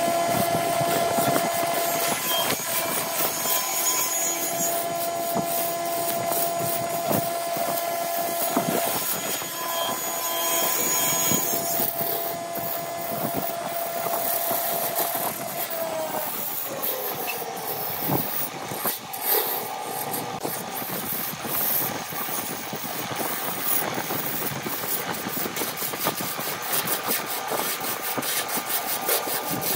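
Wood lathe running with a hand-held turning chisel cutting a spinning wooden cup blank: a steady motor whine under the hiss and scraping of the tool shaving the wood. About 16 seconds in, one of the whining tones slides down in pitch.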